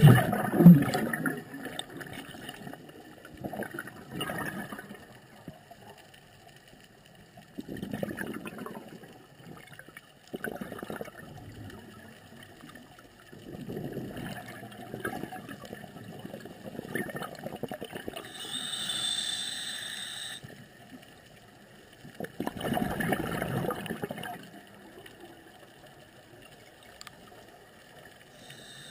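Scuba diver breathing through a regulator underwater: gurgling bursts of exhaled bubbles every few seconds, the loudest at the start, with a brief higher hiss about two-thirds of the way in.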